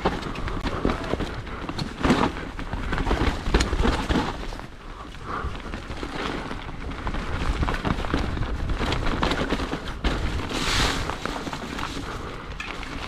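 Salsa Rustler full-suspension mountain bike descending a steep, muddy trail: wind rumbling on the camera microphone, tyres sliding through mud, and the bike knocking and rattling over bumps.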